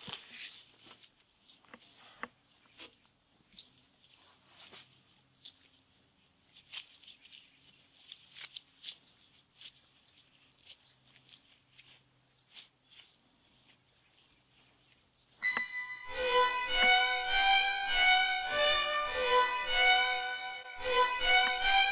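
A faint insect drone with a few scattered light clicks. About fifteen seconds in, music starts suddenly and loudly: a violin melody of short repeated notes over a pulsing beat.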